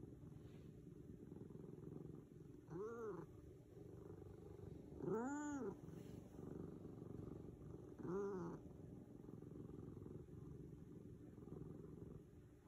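Domestic tabby cat purring steadily, with three short meows that rise and fall in pitch, about three, five and eight seconds in. The middle meow is the loudest.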